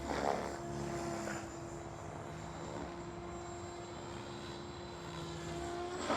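Electric Goblin Kraken 580 RC helicopter in flight: a steady whine from its motor and rotor head, with a surge of whooshing blade noise about a third of a second in and again at the end as the collective pitch is pumped, loading the newly fitted one-way bearing.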